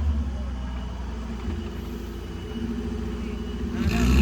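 Suzuki Jimny off-roader's engine running at low revs on the trail, then revving up briefly near the end.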